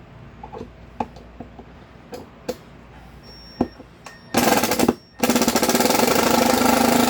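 Light knocks and clicks, then an impact driver hammering in two loud runs, the first about half a second long and the second about two seconds, backing out the fasteners that hold the key machine to its wooden crate base.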